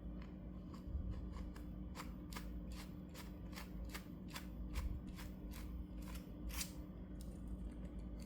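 A screw being driven by hand into 3D-printed PLA parts, making a run of short sharp clicks at about two or three a second.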